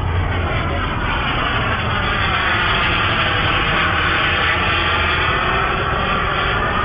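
Twin-turbine radio-controlled A-10 Thunderbolt model jet flying past, its turbines making a steady jet hiss with a sweeping, phasing quality that swells around the middle.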